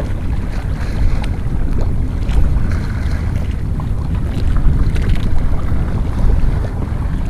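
Wind buffeting the microphone over open sea: a loud, uneven low rumble, with a few faint clicks.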